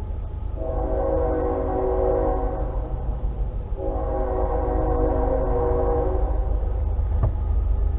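Train horn sounding two long blasts, each a steady chord of several tones, the second starting about four seconds in, over a constant low rumble.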